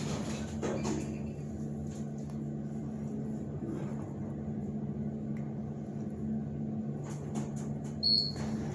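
A 2003 KONE hydraulic elevator running, heard inside the cab as a steady low hum. A short high beep sounds near the end.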